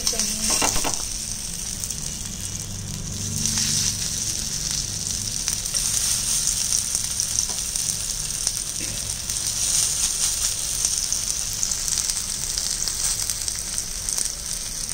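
Sabudana vadas sizzling in hot ghee in a grill pan as they are shallow-fried. The sizzle starts suddenly as the first vada goes into the pan and swells again about four seconds in as more are added.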